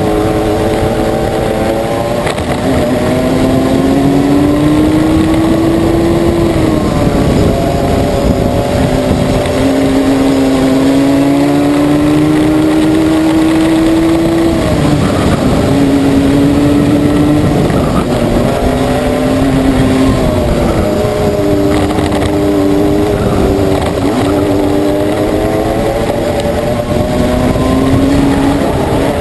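Racing kart engine heard from on board at full throttle, its pitch climbing steadily along each straight and dropping sharply when the throttle is lifted for a corner, repeated about six times. A steady rumble of wind and tyres on tarmac runs underneath.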